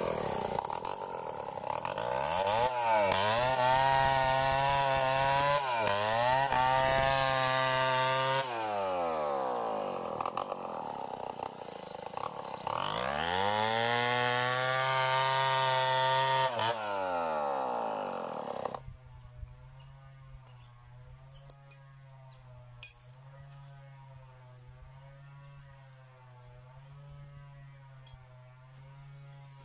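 Stihl 070 two-stroke chainsaw running at high revs while cutting into a large tree trunk, its engine speed dropping and climbing again several times. About two-thirds of the way through it falls to a steady, much quieter idle.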